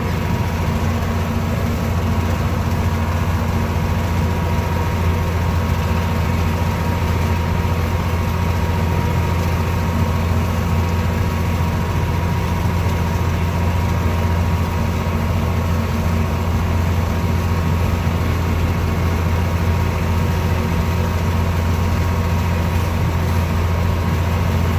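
John Deere 4630 tractor's turbocharged six-cylinder diesel running steadily under load while it drives a 15-foot batwing brush hog through corn stalks: a deep, even drone with a faint steady whine above it.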